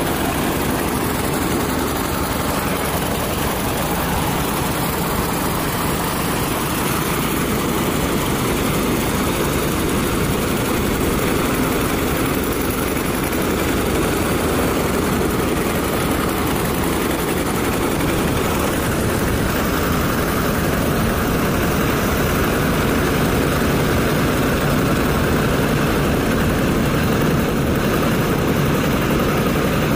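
Standard TSC-513 combine harvester running steadily at close range while harvesting paddy, its engine and cutting and threshing machinery making a loud, even mechanical noise.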